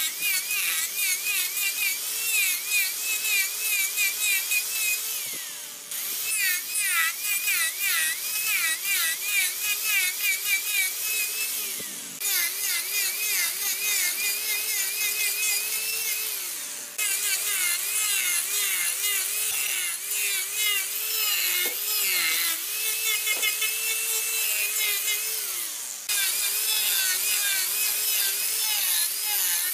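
Handheld angle grinder grinding into a turned wooden workpiece. Its motor whine wavers up and down in pitch as the disc bites into the wood and eases off, over a gritty rasp. The sound breaks off sharply and starts again every few seconds.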